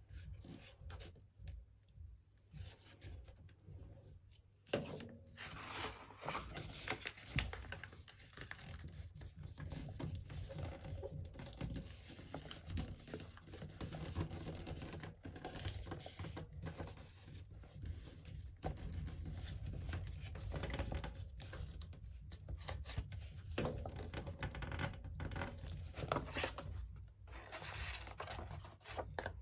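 Paper and cardboard being handled, rubbed and scraped: a continuous scratchy rustling with frequent small knocks, which starts about five seconds in after a few sparse taps.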